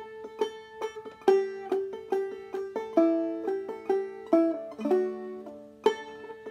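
Five-string banjo played clawhammer style in Double D tuning: a run of plucked notes and strums, a strong note about every half second with lighter ones between, over the five chord of the tune.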